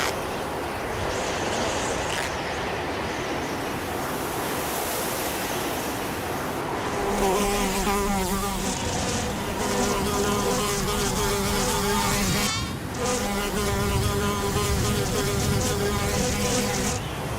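Wind noise, then from about seven seconds a steady buzz like a fly's, a low hum with wavering overtones, which breaks off briefly once and stops near the end.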